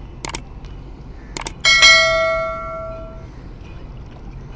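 Subscribe-button animation sound effect: two short clicks, then a bell ding about a second and a half in that rings out and fades away over about a second and a half.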